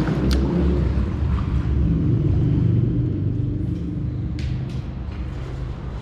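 A steady low rumble, with a couple of light clicks.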